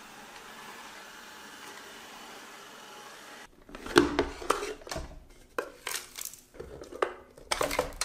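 Shark ION robot vacuum running with a steady hiss, then, after about three and a half seconds, sharp plastic clicks, knocks and rattles as its dust bin is unlatched and pulled out by hand. The loudest snap comes about four seconds in.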